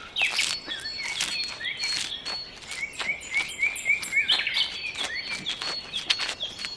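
Birds chirping, many short repeated chirps and calls, with scattered sharp clicks among them.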